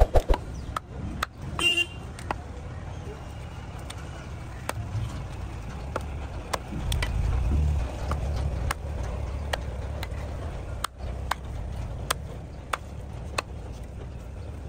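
Large knife chopping a catla fish into chunks on a wooden log block: sharp knocks of the blade on the wood, roughly two a second, over a low rumble of road traffic.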